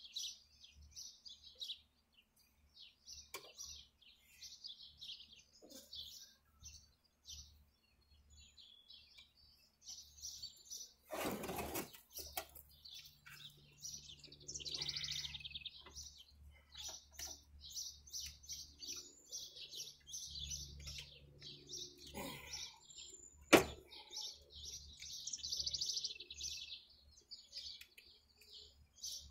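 Songbirds chirping and singing continuously in quick high phrases. A short rattle about eleven seconds in and a sharp click, the loudest sound, near two-thirds of the way through come from hand work on the riding mower's Honda engine.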